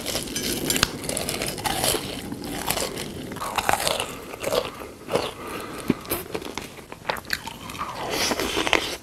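Crunchy biting and chewing of food, a string of irregular crackling bites.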